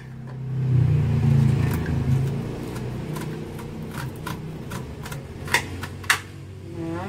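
A low motor drone swells about half a second in and then settles to a steadier, quieter hum. Over it come a few sharp scrapes of a knife cutting kernels off an ear of sweet corn onto a plate.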